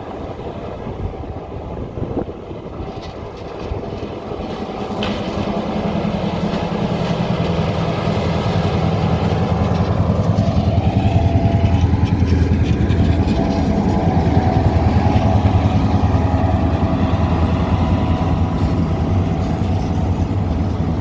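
Diesel locomotive, an EMD GP38, running under power. Its low engine drone grows louder over the first ten seconds or so as it draws near, then holds steady.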